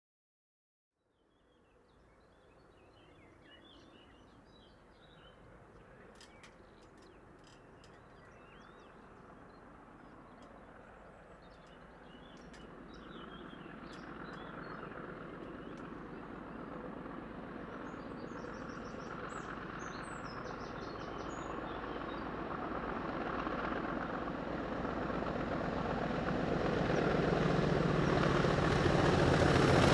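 A diesel-hauled passenger train approaching, its engine and wheel noise growing steadily louder until it is close near the end, with birds chirping over the quieter early part.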